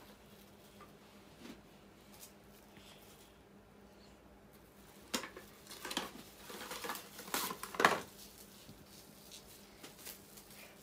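Plastic cling wrap pulled off its roll and torn across the box's cutter edge: crinkling and rustling starting about five seconds in, with a sharp tear just before eight seconds.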